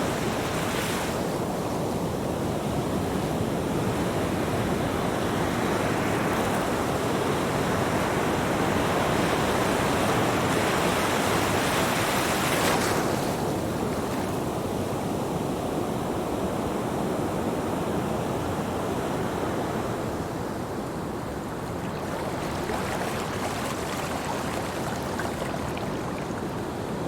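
Ocean surf washing onto a beach: a steady rush of waves that swells and peaks about twelve seconds in, then falls back as the wave recedes.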